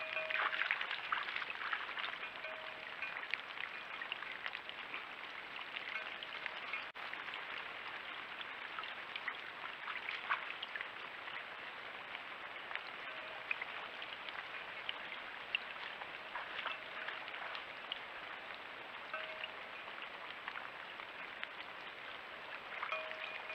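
Light rain pattering on wet leaves and ground: an even hiss dotted with many small drop ticks, with a faint steady high tone underneath.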